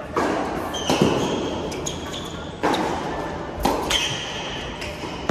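Tennis rally on an indoor hard court: racket strikes and ball bounces as sharp pops echoing through the large hall, about five in all, with short sneaker squeaks on the court surface between them.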